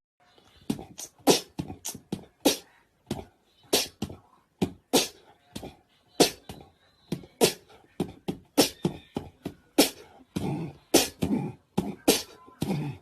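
A long run of short, sharp pops, irregularly spaced at about two to three a second.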